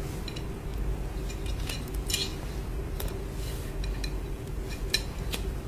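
Scattered light clinks and taps of a ceramic sublimation plate being handled on a hard surface, over a steady low hum.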